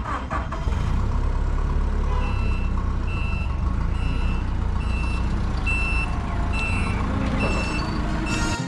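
Gas-powered forklift reversing across a gravel yard: its reversing alarm gives a regular series of short high beeps over the steady low running of its engine.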